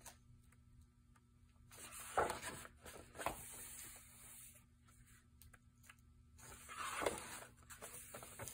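Sheets of heavy patterned scrapbook paper rustling as they are turned over by hand, a few times, loudest about two seconds in and again about seven seconds in.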